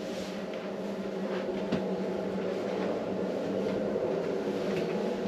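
Steady low hum of a motor yacht's onboard machinery, growing slightly louder, with a few faint knocks.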